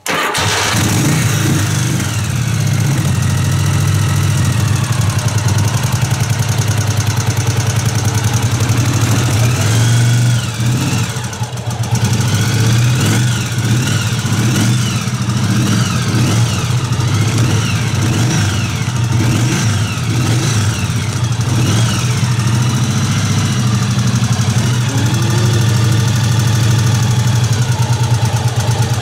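1981 Yamaha XV750 Special's air-cooled V-twin engine running steadily at idle, with a brief dip in the sound about twelve seconds in.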